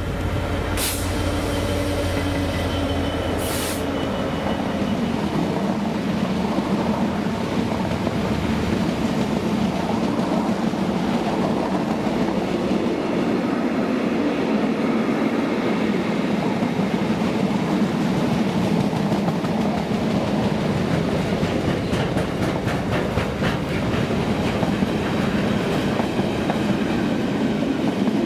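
A Freightliner Class 66 diesel locomotive hauls a container freight train past at speed. Its engine hums low for the first few seconds, with two short bursts of hiss about one and three and a half seconds in. Then the container wagons roll by in a steady rumble, with a run of wheel clicks over rail joints about two-thirds of the way through.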